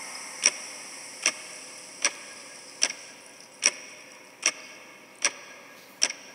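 Clock-like ticking: sharp, evenly spaced ticks about every 0.8 seconds, eight in all, over a faint steady hiss.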